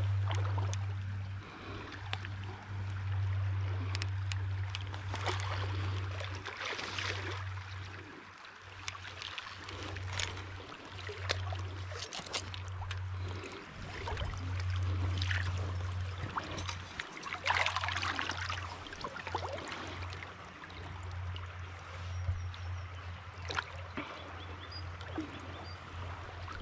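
Shallow river water trickling and gurgling, broken by irregular splashes as a steelhead is handled in the shallows. A steady low hum runs underneath and drops out briefly a few times.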